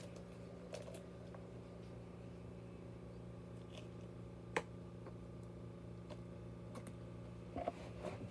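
Low steady electrical hum with a few faint, scattered small clicks. The sharpest click comes about four and a half seconds in, and a small cluster comes near the end.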